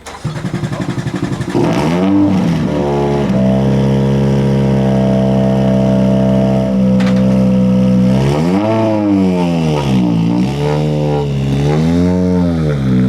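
Ford Fiesta R5 rally car's turbocharged four-cylinder engine running hard. It pulses briefly, then revs up to a high note held steady for several seconds, then rises and falls over and over as the revs climb and drop.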